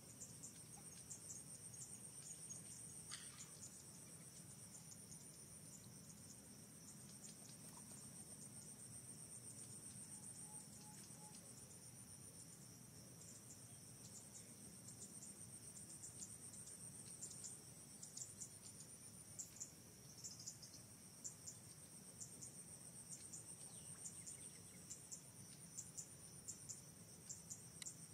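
Steady, faint, high-pitched insect chorus with rapid ticking pulses, typical of crickets or cicadas in tropical trees. A short, faint falling squeak comes about three seconds in.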